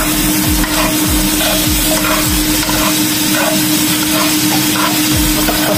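Green bell pepper and onion pieces sizzling in a nonstick wok as a plastic spatula stirs and scrapes them around the pan, over a steady hum.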